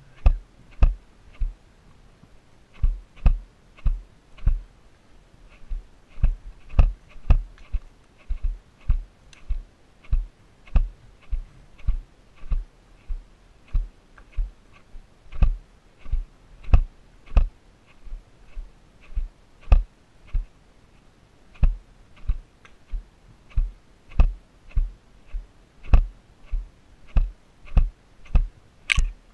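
A GoPro Hero camera clicking in its helmet mount, which has worked loose, about two sharp clicks with low knocks a second while the rider is on horseback.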